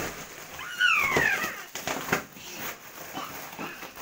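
A toddler's short high squeal that falls in pitch, followed by a few sharp crackles of a foil balloon being grabbed and crumpled.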